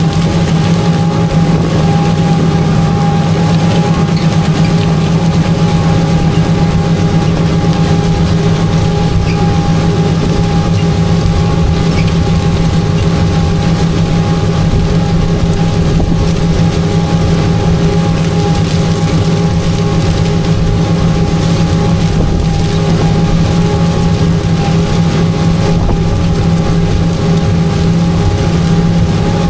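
Tractor engine running steadily under the heavy draft of an in-line ripper working through corn stubble: a constant low drone with a few steady higher tones over it.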